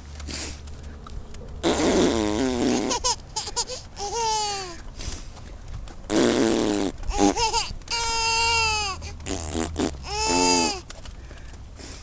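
A person blowing raspberries, spluttering mouth fart sounds, several times, and a five-month-old baby answering with high, sliding squeals of laughter and babble between them.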